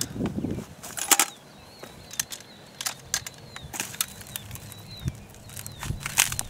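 Handling noise of a DP-28 light machine gun: scattered metal clicks and knocks as it is lowered and set down on its bipod. The sharpest knocks come about a second in and again near the end.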